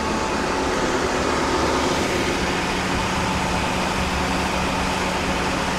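Oilfield cementing pump truck running at a steady drone, its deck engines held at about 1600 rpm driving the triplex pumps in gear and the centrifugal pumps. The pumps are being run to push the last water out of them for winterization.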